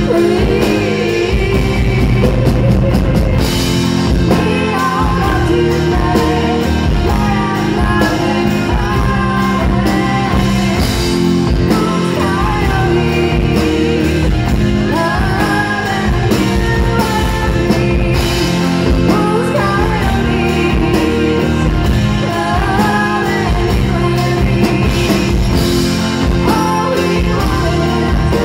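Live rock band playing: a woman singing lead over guitar and drums.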